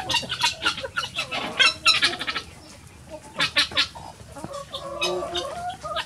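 A flock of free-ranging chickens clucking as they feed, with many short sharp taps and brief calls. It goes quieter about halfway through, then the clucking picks up again.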